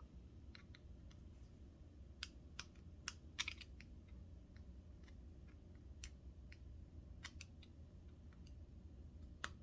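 Faint, scattered small metal clicks of a small screwdriver working the screws of a sewing machine's clutch assembly as they are tightened, over a low steady hum.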